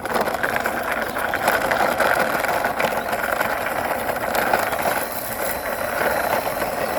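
Big toy dump truck pushed along by hand, its wheels rolling with a continuous rattle of fine clicks.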